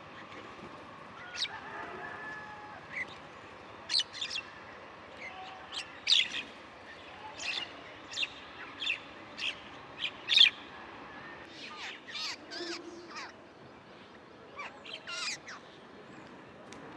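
Small birds chirping: short, sharp high-pitched chirps scattered irregularly, roughly one or two a second. They grow busier in the last few seconds, with quick falling notes.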